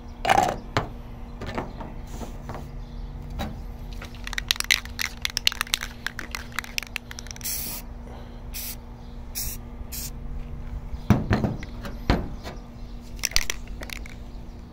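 Aerosol spray paint can, rattled so its mixing ball clicks rapidly, then sprayed in several short hisses. A couple of dull knocks, the loudest about eleven seconds in.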